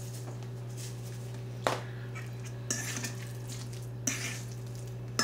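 Metal spoon stirring a thick stuffing paste in a stainless steel mixing bowl, scraping and clinking against the bowl. One sharp clink about a second and a half in is the loudest sound, and more scrapes and clinks follow in the second half.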